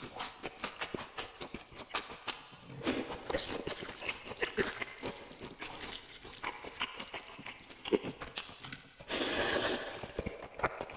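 Close-up eating sounds: wet chewing with many quick mouth clicks and smacks, then about nine seconds in a loud slurp of noodles lasting about a second.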